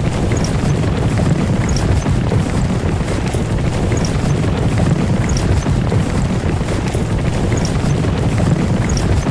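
Horse-drawn carriage moving along: a steady low rumble of the wheels, with faint hoof clops and small high clicks scattered through it.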